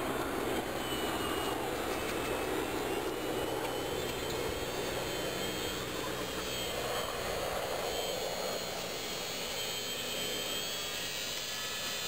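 A homemade electric garden tractor's 1.5-horsepower, 24-volt shunt-wound DC motor and drivetrain running steadily under load as the tractor pushes and grades soil with its front blade.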